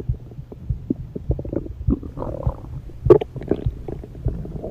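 Human stomach grumbling: irregular gurgles and short pops, with the loudest pop about three seconds in.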